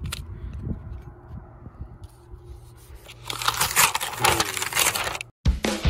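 Brown kraft wrapping paper being torn and crumpled by hand, faint rustling at first and then loud crackling tearing from about three seconds in. It cuts off abruptly near the end, and music starts.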